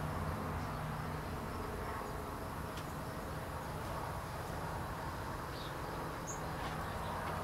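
Steady outdoor background noise, a low buzz and hiss, with a couple of brief, faint high chirps in the second half.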